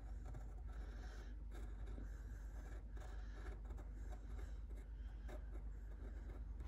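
Faint scratching of a pencil on paper as short strokes are drawn, over a low steady hum.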